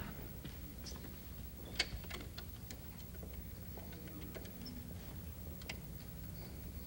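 Faint, irregular light clicks and taps, the loudest about two seconds in, over a steady low hum.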